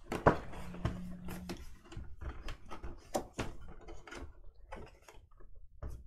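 A cardboard box being cut open and its flap pulled back by hand: a run of irregular scrapes, rustles and knocks of the cardboard.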